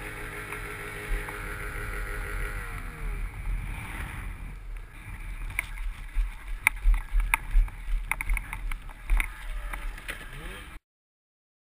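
Snowmobile engine running at steady revs, then winding down about three seconds in. After that, wind rumbles on the microphone, with scattered sharp knocks and clicks, until the sound cuts out near the end.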